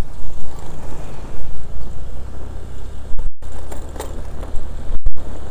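Wind buffeting the microphone of a phone mounted on a moving Honda Click scooter, over the scooter's steady engine hum. The sound cuts out briefly twice, in the middle and near the end.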